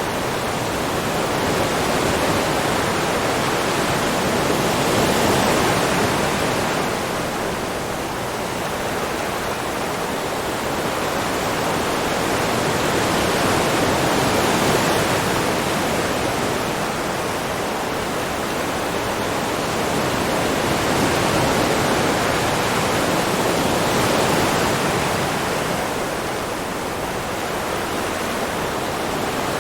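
Ocean waves washing ashore, a steady rushing hiss that swells and eases slowly, three times.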